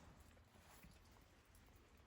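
Near silence: faint room tone, with one tiny tick a little less than a second in.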